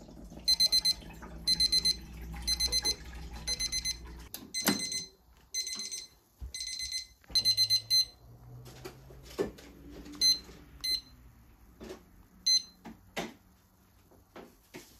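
Tanita digital kitchen timer going off as its countdown reaches zero: short bursts of rapid high beeps, about one burst a second, for the first several seconds. Later come a few single beeps as its buttons are pressed to set and start a new countdown, among light handling clicks and a knock.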